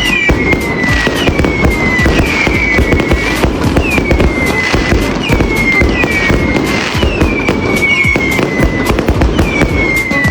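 Fireworks sound with music: a falling whistle about once a second over dense crackling and popping.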